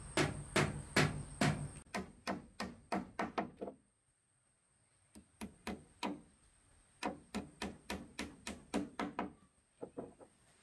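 Rhythmic thudding blows, about three to four a second, in runs broken by short pauses about four and six and a half seconds in.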